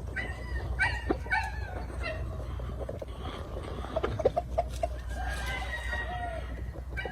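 Chickens clucking and calling in short calls, with a longer call about five seconds in, over a steady low rumble.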